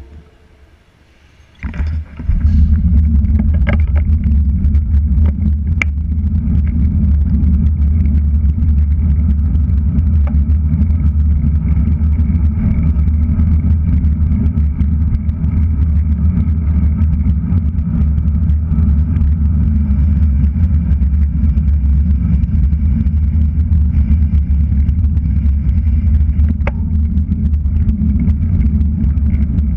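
Steady low rumble of wind and road noise on a bike-mounted GoPro Hero3+ microphone as a road bike rides along a city street. It starts about two seconds in, after a brief near-quiet moment.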